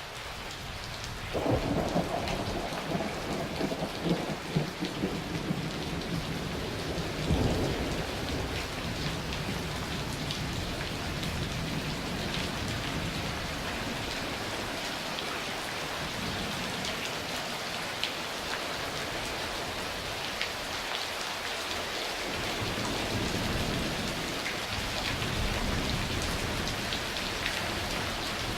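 Steady rain falling, with a clap of thunder about a second and a half in that crackles and rumbles for several seconds, then a second, softer roll of thunder near the end.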